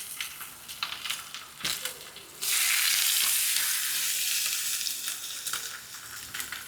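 Spatchcocked chicken searing in hot ghee in cast iron pans, sizzling with scattered crackles and pops. About two and a half seconds in, the sizzle suddenly jumps much louder for a couple of seconds, then eases back.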